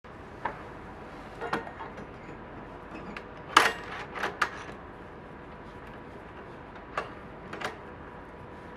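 A handful of short clicks and knocks over a steady low hiss, the loudest about three and a half seconds in.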